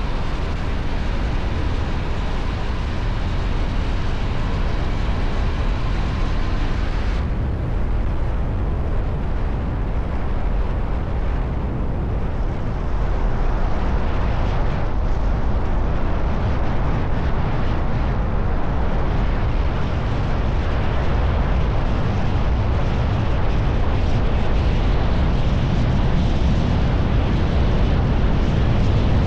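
Kove 625X Adventure motorcycle with stock exhaust riding at a steady pace, its engine running under a heavy rumble of wind on the microphone. The hiss in the upper range thins out about seven seconds in.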